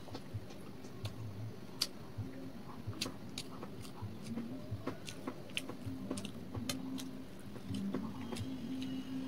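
A person chewing soft food, paratha with potato curry, with wet mouth clicks and lip smacks several times a second.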